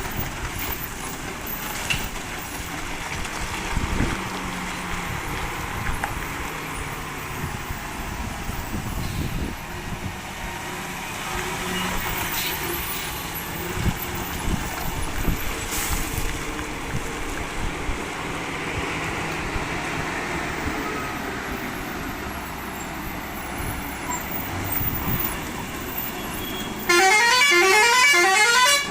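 Heavy truck driving, its engine running steadily under road and wind noise. Near the end a loud horn sounds for about two seconds, a fast run of repeating rising notes like a musical air horn.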